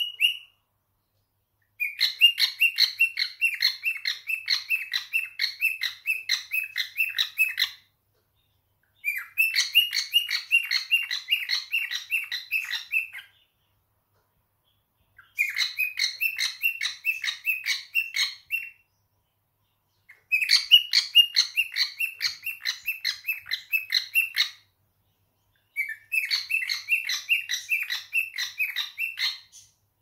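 Male cockatiel singing: five phrases of quick repeated chirping whistles, each a few seconds long, broken by short silent pauses.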